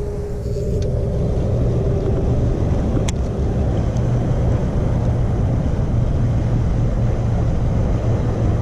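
Steady low rushing rumble of fast-flowing water at a canal drop inlet. There is a single sharp click about three seconds in.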